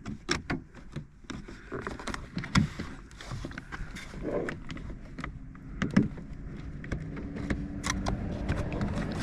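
Hands refitting a door cable inside an SUV door: scattered clicks, taps and rattles of handling, with sharper knocks about two and a half seconds and six seconds in.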